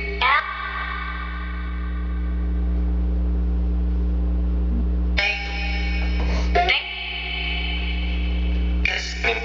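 Necrophonic spirit box app sweeping through a sound bank, playing chopped fragments of music and voices with echo and reverb over a steady low hum. The fragments ring on and then switch abruptly to new ones, about five seconds in and twice more near the end.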